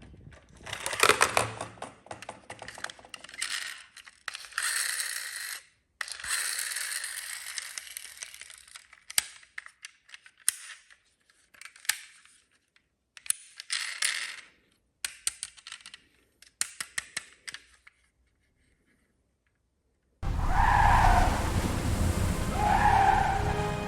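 Toy cars being handled on a hard surface: an irregular run of sharp clicks, clatter and short scraping rushes. Music starts about twenty seconds in.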